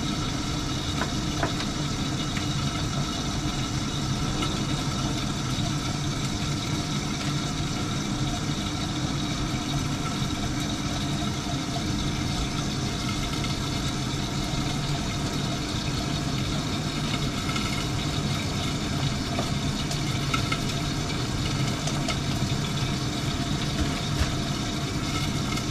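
Steady mechanical hum and whir of a kitchen exhaust fan running at an even level, with a few faint ticks and crinkles of packaging being handled.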